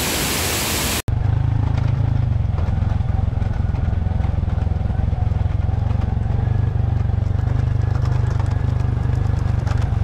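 A waterfall's steady rush for about a second, then a sudden cut to a small motorcycle engine running, heard from on the bike as a steady low drone with a rapid pulse.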